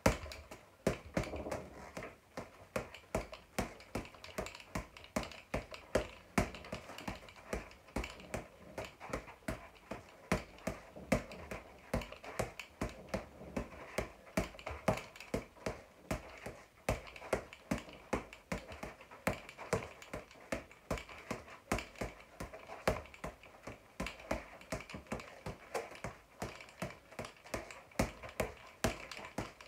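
Boxing gloves slapping a floor-to-ceiling ball in quick combinations: sharp hits about two to three a second, uneven in strength.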